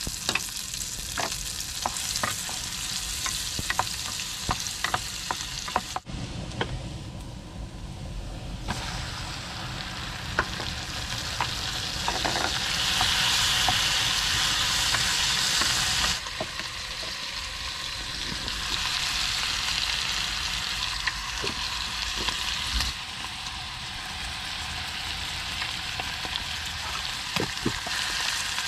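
Garlic and then raw shrimp sizzling as they fry in butter and oil in a pan, with a wooden spoon stirring and clicking against the pan. The sizzle gets louder and brighter about halfway through and changes level abruptly a few times.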